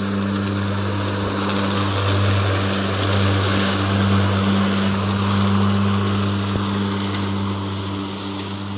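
Greenworks 60-volt CrossoverT electric riding mower mowing over fallen leaves with its blades spinning. It makes a steady electric hum over a rushing whoosh of air and leaves being blown up the chute into the rear leaf bagger.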